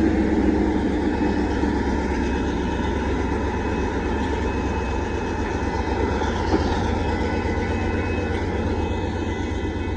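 Union Pacific grain train rolling past: a steady rumble of freight cars on the rails, with faint steady high tones over it.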